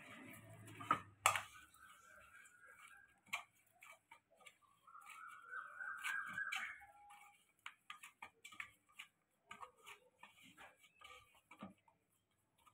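Hands kneading a stiff rice-flour dough in a steel bowl: faint, irregular clicks and taps of dough and fingers against the metal, with two sharper knocks about a second in. A faint steady whistle-like tone comes and goes twice in the first half.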